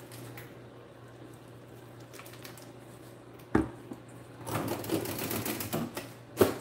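Metal fork stirring a sauce in a stainless steel mixing bowl: a single knock about three and a half seconds in, then a quick run of clinks and scrapes of the fork against the bowl that ends in a sharper strike.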